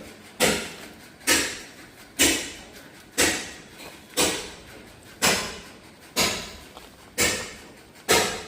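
A series of sharp knocks or blows, about one a second and fairly regular, each dying away quickly.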